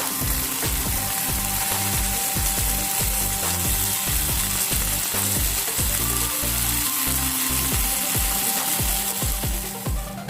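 Marinated chicken pan-frying in hot oil, sizzling steadily, over background music with a beat.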